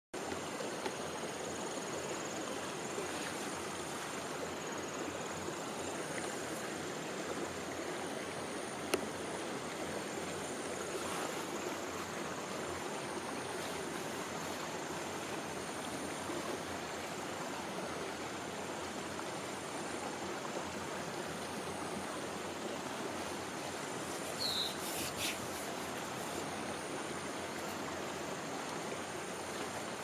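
Steady rush of running water, like a stream, with a thin, steady high insect trill above it. A short high chirp comes about two-thirds of the way through.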